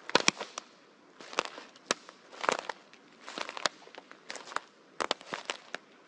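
Footsteps on a forest floor, dry branches and twigs snapping underfoot. Each step is a short cluster of sharp cracks, about one step a second.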